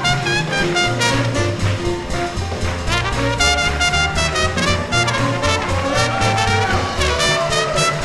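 Small-group swing band playing live: trumpet and saxophone over an upright bass walking on a steady beat, with drums.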